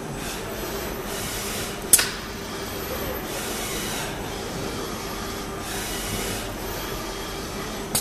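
XKNC-100GL CNC lathe and RT03 loading robot cell running: a steady machine hum with a faint steady tone, broken by several short hisses of compressed air from the pneumatic gripper. A sharp clack stands out about two seconds in, and a smaller one comes near the end.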